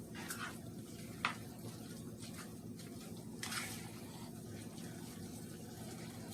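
Quiet pot-cooking sounds over a steady low hum: a sharp clink of a utensil about a second in, and a short rustle about three and a half seconds in.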